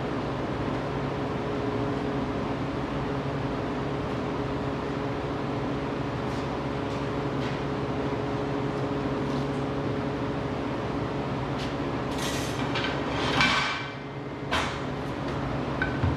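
A steady mechanical hum fills the shop. In the last few seconds, aluminium square tubing knocks and clanks against the aluminium cart frame as it is handled. There are several ringing metallic knocks, the loudest about 13 seconds in.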